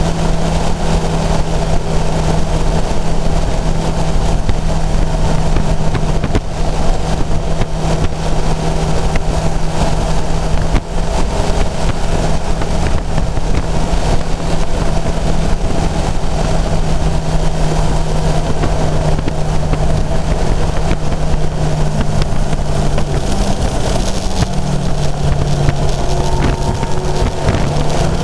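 Kawasaki inline-four motorcycle engine running at steady revs under way, heard from on board over heavy wind rush. Near the end the engine note drops slightly in pitch as the revs ease.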